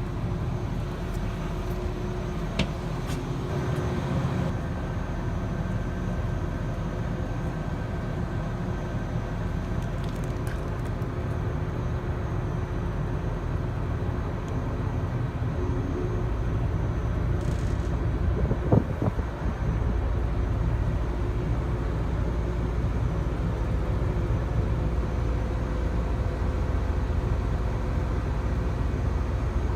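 Steady low mechanical rumble, getting louder about halfway through, with a sharp click early on and a short knock about two-thirds of the way in.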